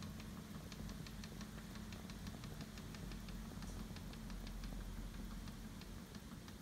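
A low, steady hum with faint, evenly spaced ticks over it.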